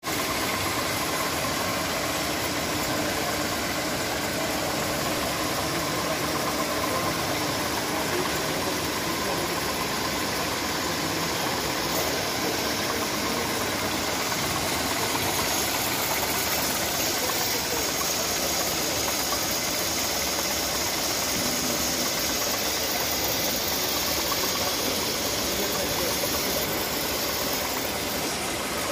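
A 27-station D-tooling double-sided rotary tablet press running with its dust extraction unit, giving a steady, even mechanical noise.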